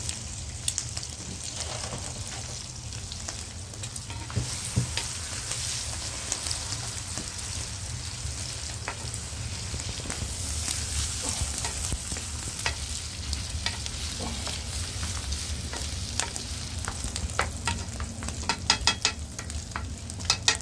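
Food frying in a pan: a steady sizzle over a low rumble, with scattered taps and scrapes of a cooking utensil and a quick run of them near the end.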